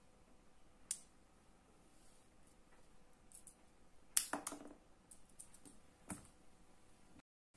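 Small clicks and light rattles from hands handling electronic parts and wires on a rubber work mat: one sharp click about a second in, a louder cluster of clicks past the middle, and another click near the end.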